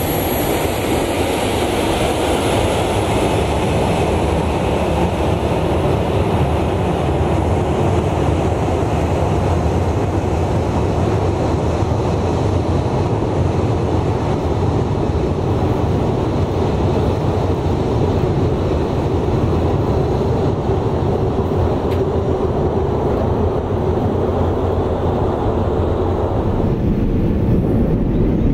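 Boeing 737-800's CFM56-7B turbofan engines running as it taxis: a steady jet rumble with a faint high fan whine that slides down in pitch and fades in the first few seconds as it passes. The sound turns duller near the end.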